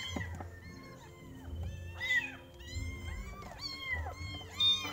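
Kittens mewing over and over in short, high-pitched, overlapping cries as they are bottle-fed milk, the loudest cry near the end.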